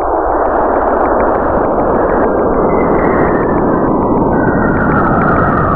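Radio emissions recorded by NASA's Juno spacecraft as it passed through the region where Jupiter's moon Io drives radio emission in Jupiter's magnetic field, turned into sound. It is a loud, steady rushing hiss, with a thin whistling tone that glides downward in the second half.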